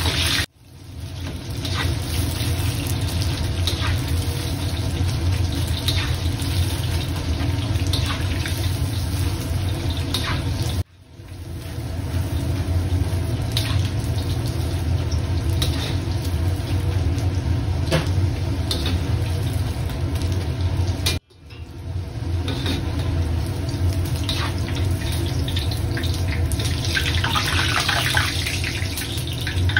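Battered chicken pieces deep-frying in a wok of hot oil: steady sizzling over a low rumble, with occasional pops. The sound cuts out abruptly three times, about half a second in, about 11 seconds in and about 21 seconds in. Near the end the sizzle grows brighter as the chicken is lifted out in a mesh strainer and the oil drains through.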